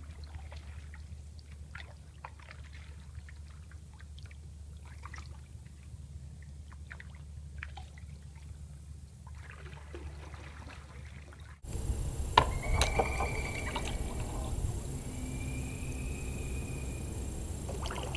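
Canoe paddle strokes in still swamp water: soft drips and trickles off the blade over a low steady hum. After a cut about two thirds of the way through it gets louder, with one sharp knock and a thin high whistle heard twice.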